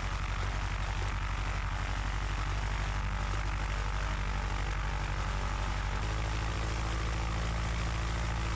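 Cessna 150's four-cylinder Continental O-200 engine and propeller running at low rpm during the pre-flight run-up; about six seconds in the engine note shifts and becomes steadier. This is the run-up in which the pilot finds a fouled spark plug.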